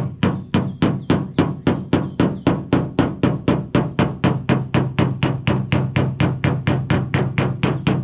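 Body hammer's pointed end tapping the steel fender of a 1979 Chevy Malibu against a dolly held behind the panel, in fast, even taps at about five a second. The taps knock down a high spot around the edge of a dent in the sheet metal.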